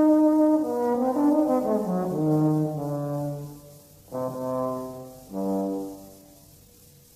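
Solo trombone playing a held note, then a run of notes stepping downward, then two separate, shorter notes before it dies away.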